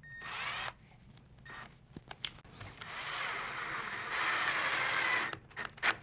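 Cordless drill/driver with a long bit driving a pocket screw into wood. A brief spin at the start is followed by a steady run of about two and a half seconds that gets louder in its last second, and there are a few sharp clicks near the end.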